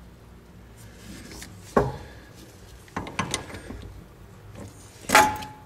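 A few sharp metallic clicks and clunks from a caliper piston tool and ratchet on a Honda rear brake caliper, as the piston is wound in clockwise to set its slot at 12 o'clock. The loudest click comes near the end, with a brief ring.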